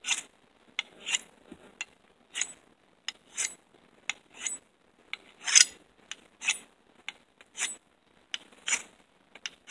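A ferrocerium fire-starting rod scraped down the sharpened spine of a Condor Engineer Bolo's high-carbon steel blade to strike sparks, about one short metallic rasp a second, about ten strokes in all, the loudest about halfway through.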